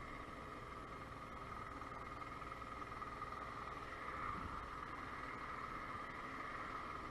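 Motobi BS1 50cc scooter engine running at low revs with a steady drone while the scooter rolls slowly in traffic.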